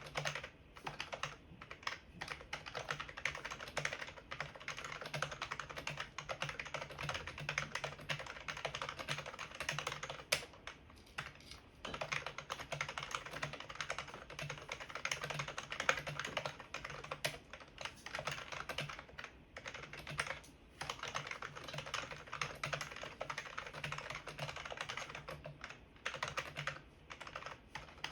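Fast, continuous typing on a Qsenn DT35 membrane keyboard: a dense run of soft key clicks with a couple of brief pauses.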